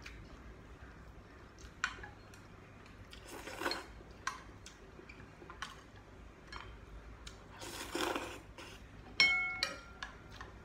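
Eating noodles from a ceramic bowl: wooden chopsticks and a metal spoon click against the bowl, with two short slurps in the middle. Just after nine seconds comes the loudest sound, a sharp clink of the spoon on the bowl that rings briefly.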